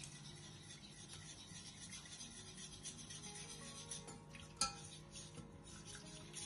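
Wire whisk scraping and rubbing around the bottom of a stainless steel saucepan, beating milk into a butter-and-flour roux for béchamel, with one sharp tap a little past halfway.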